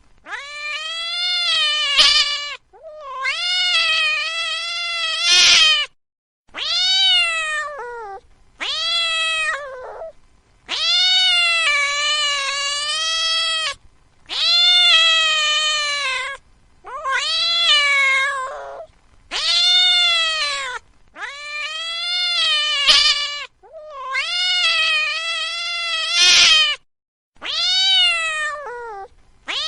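A domestic cat meowing over and over: about a dozen long, drawn-out meows, each rising and then falling in pitch, with short gaps between.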